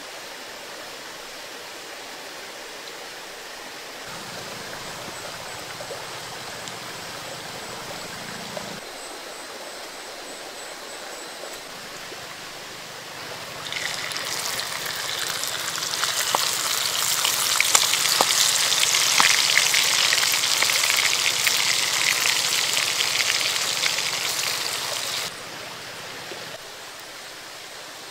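Water poured into a clay pot, then loud splashing and swishing of water as a squid is washed by hand in the pot; the splashing starts about halfway through and cuts off abruptly near the end.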